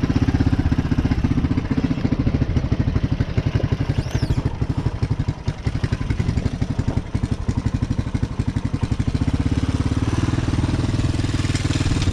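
Small ATV (quad bike) engine idling steadily, with an even, rapid pulse and a brief dip about halfway through.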